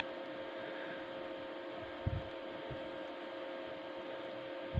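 Steady background hum, with two soft bumps about two seconds in as a heating rod is handled and pressed into a room heater's metal reflector.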